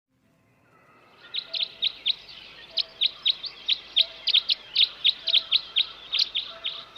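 A small bird chirping rapidly: a fast series of sharp, short, downward-slurred chirps, about four a second. It fades in over the first second.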